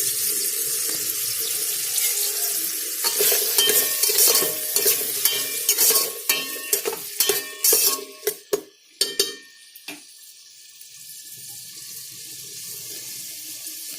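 Onions, green chillies and tomatoes sizzling in hot oil in a rice cooker pot. From about three seconds in, a spoon stirs them with many clicks and knocks against the pot. After about ten seconds only a quieter sizzle remains.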